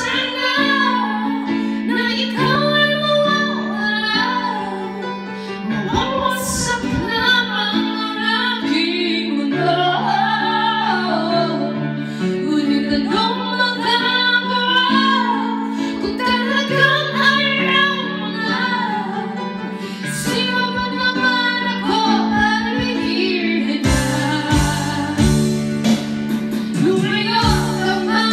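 A woman singing a ballad through a corded karaoke microphone over a karaoke backing track with steady held chords.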